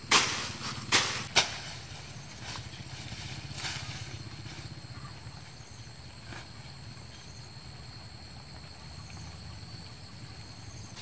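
Footsteps and rustling of tall grass as people walk through a weedy field, with a few loud rustles in the first second and a half and fainter ones after. A steady low hum runs underneath.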